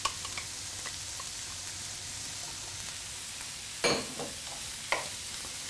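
Diced celery, onion and apple sizzling steadily in butter in a frying pan. A wooden spoon stirring the pan knocks against it twice near the end.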